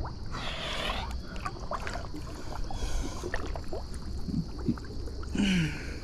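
Creek water sloshing and splashing around a person wading in it, in uneven washes with small knocks, and a short grunt near the end.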